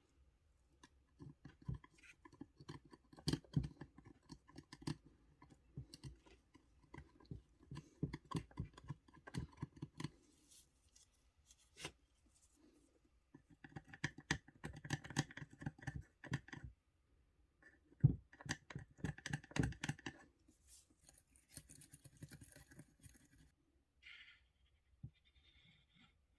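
Close-up handwork on a small model car: runs of quick scraping or scrubbing strokes mixed with sharp clicks, in three bursts with short pauses between.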